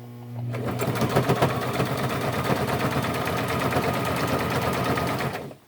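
Brother electric sewing machine stitching a hem through denim jeans, running at a steady fast pace with its rapid needle strokes over the motor's hum. It starts at once and stops shortly before the end.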